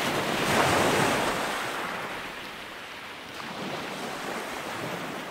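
Ocean waves washing, a steady rush that swells about a second in and then eases off.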